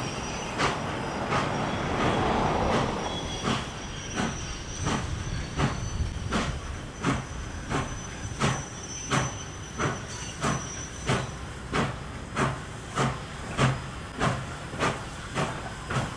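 Nickel Plate Road 765, a Lima-built 2-8-4 Berkshire steam locomotive, working along with steady exhaust chuffs at about one and a half a second over a low rumble.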